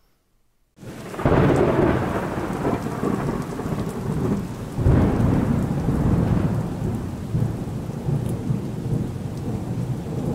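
Thunderstorm: steady rain with rolling thunder. It starts after a brief silence, with one rumble about a second in and another about five seconds in.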